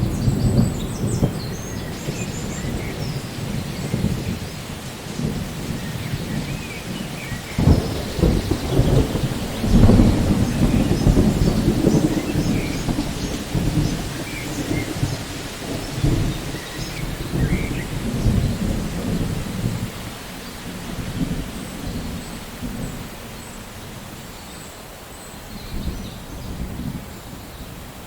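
Thunderstorm: steady rain with rolling thunder rumbling over it, a sharp crack about eight seconds in and the loudest peal of thunder around ten seconds, then the rumbling eases off toward the end.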